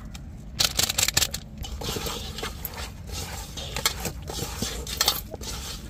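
Raw chicken pieces being mixed by hand with chicken masala powder in a bowl: irregular scraping and clicking, starting about half a second in, densest over the first second and a half, with scattered sharper clicks after.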